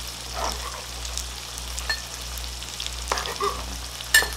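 Slabs of firm tofu frying in oil in a pan, a steady sizzle, with a few sharp knife clicks on a cutting board as chili peppers are sliced; the loudest click comes near the end.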